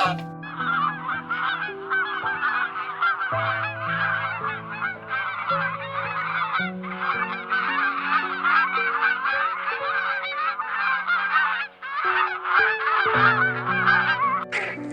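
A flock of birds calling all at once in a dense, continuous chatter of short, overlapping calls, briefly dipping about twelve seconds in. Soft background music with long held notes plays underneath.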